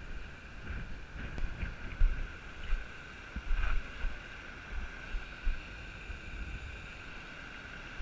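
Wind buffeting the microphone in irregular low thumps, with footsteps on a stony path. Under it runs a steady high-pitched drone and hiss, with a brief click about a second and a half in.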